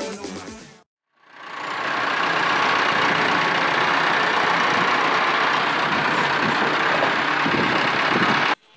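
Music fades out, and after a brief gap a Massey Ferguson tractor's diesel engine is heard running steadily while its front loader works a manure heap. The engine sound cuts off abruptly near the end.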